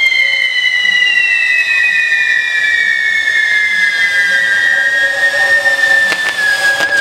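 Whistling firework giving one long, loud whistle that slowly falls in pitch, with two sharp cracks about six seconds in.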